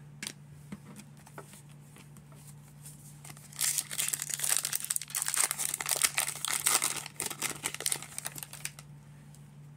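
Plastic wrapper of a baseball card pack crinkling as it is opened, a dense crackling rustle starting about three and a half seconds in and lasting about five seconds.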